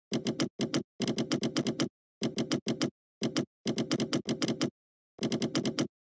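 Typing on a computer keyboard: short bursts of rapid keystrokes, with dead silence between the bursts.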